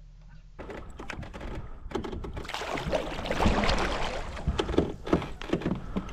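Kayak being paddled across open water, starting about half a second in: paddle strokes splashing, with many small knocks and clicks throughout.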